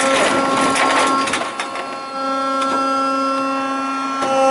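Battery-electric rear-load garbage truck's hydraulic bin lifter running with a steady whine while it empties a wheelie bin of recycling into the hopper. The contents clatter and crash into the hopper for the first second and a half, and the whine briefly drops away about two seconds in.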